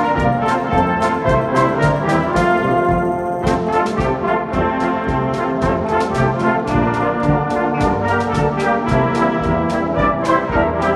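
School wind band of brass and saxophones (trumpet, French horn, euphonium, tuba, alto saxophone) playing sustained chords together, over a quick, steady ticking beat.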